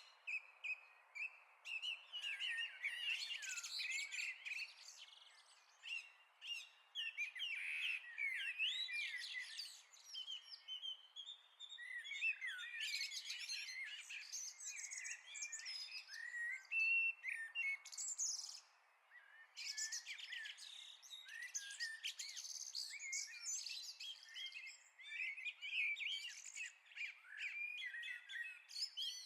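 Several songbirds singing at once, a dense mix of overlapping chirps and trills with a faint hiss underneath, thinning briefly around the middle.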